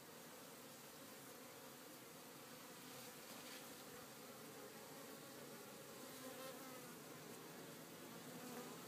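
Honey bees buzzing faintly around the entrance of a wooden hive, a steady hum with a light hiss over it.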